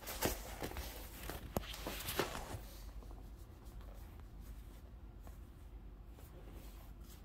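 Faint rustling and a few soft knocks from the camera being handled against the couch's fabric cover, mostly in the first few seconds, then quiet room tone with a low hum while a hand strokes the cat.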